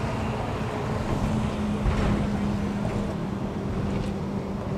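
Steady engine hum at one low pitch under wind noise on the microphone, swelling slightly about two seconds in.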